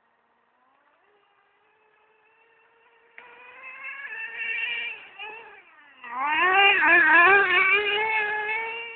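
Traxxas Slayer's TRX 3.3 nitro engine buzzing at high revs, its pitch wavering as the throttle is worked. It is faint at first, gets suddenly louder about three seconds in, and after a brief drop in pitch and level is loudest in the last three seconds as the truck comes close.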